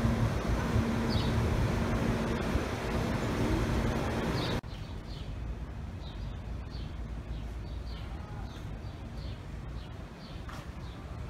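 Outdoor ambience: a steady mechanical hum with a low drone for the first four and a half seconds, which cuts off suddenly, leaving quieter background noise with short high bird chirps repeating every half second or so.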